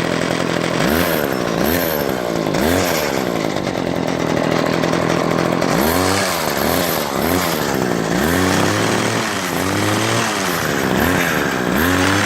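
Gas string trimmer engine running and being revved up and back down about ten times in short blips, running properly now that its fuel lines have been replaced.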